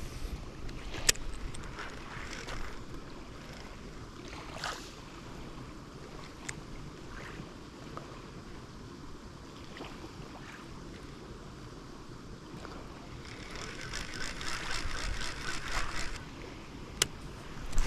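Small waves lapping at a lake shore under a steady wash of wind and water noise. A few separate sharp clicks are heard, and near the end there are a few seconds of rapid ticking.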